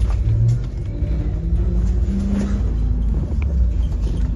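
Daewoo FX116 coach's diesel engine running, heard from inside the passenger cabin as a deep, steady rumble.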